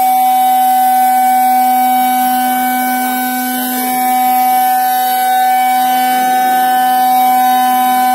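Cosmec Conquest 515 CNC machining centre milling bakelite: a steady, loud whine from the spindle and cutter, with a high hiss from the cut.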